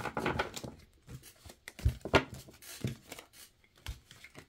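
Tarot cards being handled: a few short papery snaps and rustles, spread out with quiet gaps between them.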